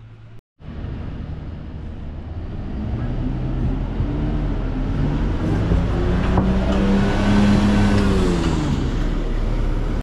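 Single-deck low-floor route bus driving past at close range: engine hum and tyre noise building from about a second in, with the engine pitch rising and falling, loudest over the last few seconds as it goes by.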